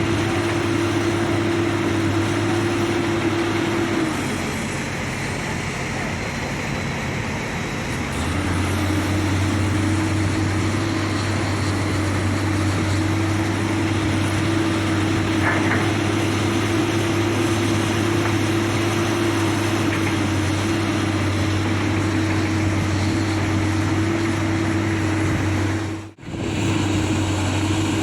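Heavy-equipment diesel engine running steadily under throttle. Its note drops for about four seconds, starting about four seconds in, then picks back up. The sound cuts out briefly near the end.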